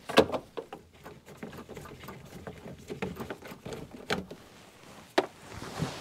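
Irregular clicks, taps and knocks of a screwdriver working screws out of a plastic under-dash trim panel, the loudest knock just after the start and sharp clicks about four and five seconds in.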